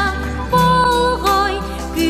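A children's song about the traffic light, sung in Yakut over a steady instrumental backing: held melodic notes that glide between pitches.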